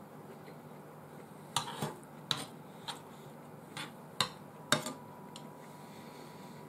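Cutlery clinking against dishes during a meal: about eight sharp clinks at irregular intervals, starting a second and a half in.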